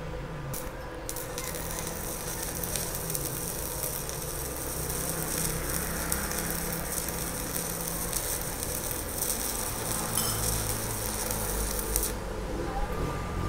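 Stick-welding arc from a Kusama Japan IGBT inverter welder at 80 amps with a 2.5 mm rod. It catches after a couple of brief strikes about a second in, crackles and sizzles steadily for about eleven seconds, and cuts off a second and a half before the end.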